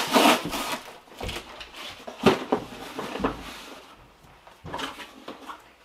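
Cardboard boxes and packing being handled: rustling with a handful of short knocks and thumps, the sharpest about two seconds in.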